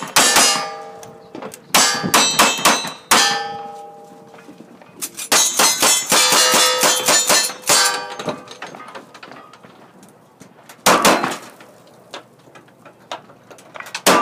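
Gunshots from cowboy-action firearms, each followed by the bright ringing clang of a steel target being hit. About six shots come in the first few seconds, then a fast string of hits, then two heavier blasts with little ringing, one about eleven seconds in and one at the end.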